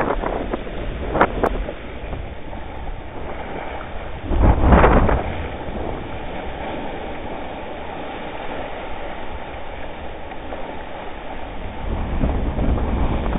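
Ocean whitewater sloshing and waves breaking on rocks around a sea kayak, with wind rumbling on the microphone. A few short splashes come in the first second or so, and a loud surge of water about four and a half seconds in.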